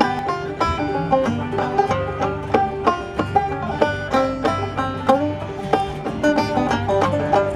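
Clawhammer-style banjo playing an old-time tune as a steady, quick run of plucked, ringing notes.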